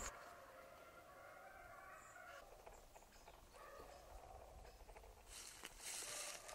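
Near silence in the woods, with faint distant animal calls. About five seconds in, a light rustling hiss begins.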